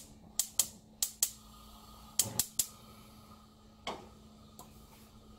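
Gas stove burner igniter clicking in short irregular runs, about nine sharp ticks in the first four seconds, as a burner is lit under a stovetop kettle.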